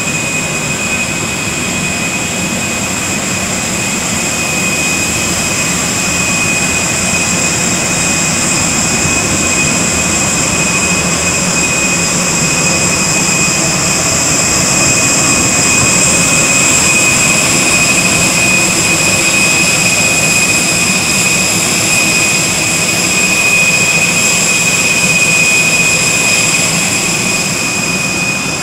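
Steady high-pitched turbine whine and rush of a parked Airbus A320neo's auxiliary power unit, growing a little louder through the middle.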